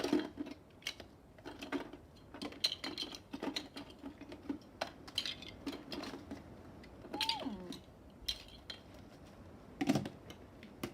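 Plastic Lego bricks clattering and clicking against each other as they are handled and lifted out of a bucket, in irregular bursts of short knocks.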